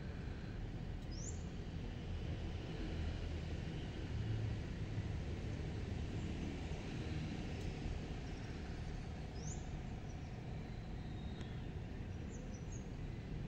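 Steady low outdoor background rumble with a faint steady hum, broken by a few short, high rising bird chirps: one about a second in, one past the middle and a small cluster near the end.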